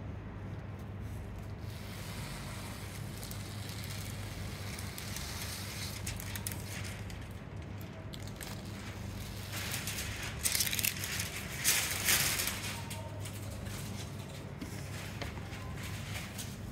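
Rhinestone transfer sheet rustling and crinkling as hands smooth it onto a T-shirt, with a louder stretch of crinkling a little past the middle. A steady low hum runs underneath.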